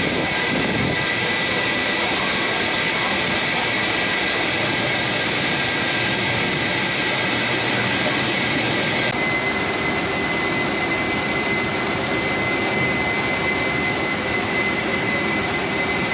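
Car wash vacuum running steadily with a high whine over a rushing air noise. The sound shifts abruptly about nine seconds in.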